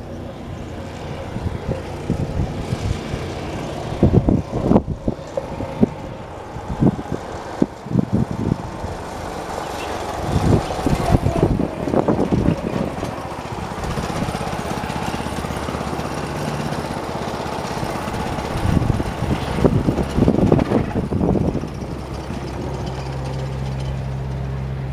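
1979 John Deere 214 lawn tractor's single-cylinder Kohler engine running steadily as the tractor is driven around a test loop, growing louder and steadier near the end as it comes closer. Irregular low thumps of wind buffet the microphone throughout.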